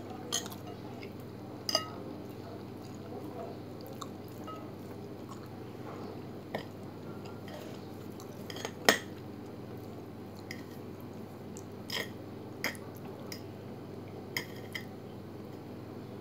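A metal fork clinking and scraping on a ceramic plate while spaghetti is twirled and eaten: scattered short clicks, the sharpest about nine seconds in, over a steady low background hum.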